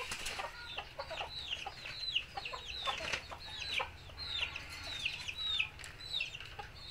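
A steady run of short, high peeps, each falling in pitch, about two a second, with lower clucks from chickens scattered among them.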